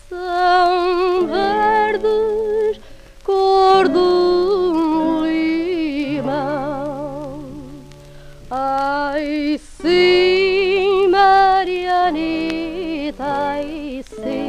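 Early gramophone recording of Portuguese popular music playing: a melody with heavy vibrato, in phrases broken by short pauses about three seconds and eight seconds in.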